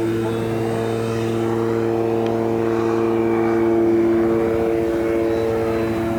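A propeller aircraft's engine runs with a steady drone as it comes in to land, swelling slightly about four seconds in.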